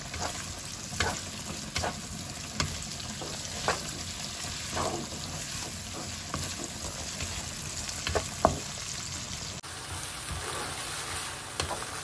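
Sliced garlic and diced ham sizzling in olive oil in a nonstick frying pan, stirred with a wooden spatula that scrapes and knocks against the pan about once a second. Near the end the sound changes abruptly, and pasta is tossed in the sizzling pan.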